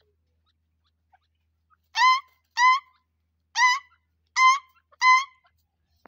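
Grey francolin calling: five loud, short, shrill notes, starting about two seconds in. The first two come close together, then after a short pause three more follow at even spacing.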